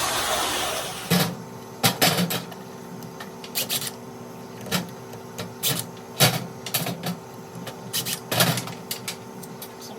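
A short hiss, then irregular sharp clicks and knocks, roughly one or two a second, over a steady hum.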